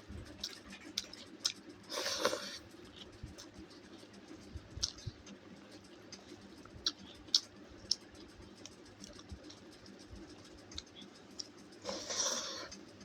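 A person eating: scattered small clicks and smacks of chewing, with two short, louder rustling crunches about two seconds in and near the end.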